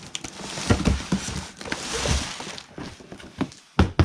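A cardboard shipping box being handled and shifted: rustling and scraping with scattered knocks, and a couple of sharp thumps near the end.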